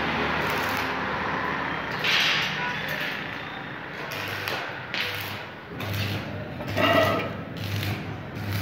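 Electric arc welding on a steel gate frame: the arc crackles and hisses in uneven spurts, with a few louder surges and a low hum that comes and goes.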